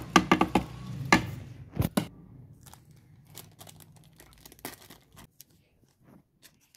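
A plate knocked against a bowl several times in quick succession as spices are tipped off it, then the crinkling and tearing of a small foil spice sachet being opened and emptied.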